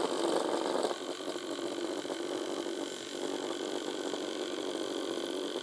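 Small battery-powered motor of a doodling robot toy buzzing steadily as the toy vibrates and spins on three marker-pen legs over paper. The buzz is a little louder for about the first second, then settles.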